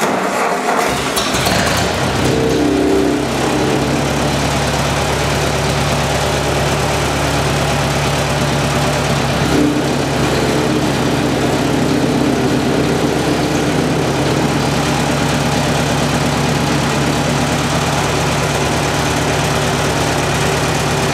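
Ford 8N-style tractor's four-cylinder gasoline engine, running on a freshly rebuilt Marvel Schebler carburetor, starts right at the beginning and settles into a steady idle. Later the idle jet is turned off its setting, which makes the engine run with a flutter, the sound of a badly tuned idle mixture.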